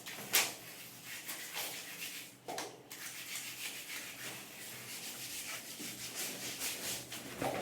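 Old wallpaper being stripped off a wall: repeated rough tearing and scraping of paper, with a sharp snap about half a second in.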